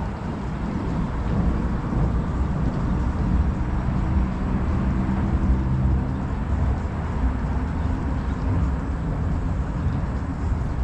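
Low, steady rumble of distant vehicle traffic, with a faint engine drone through the first several seconds.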